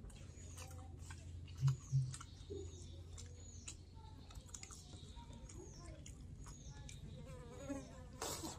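Quiet eating of fried snakehead fish, with small clicks and two low thumps about a second and a half to two seconds in. Throughout, a faint high chirp repeats about every two-thirds of a second.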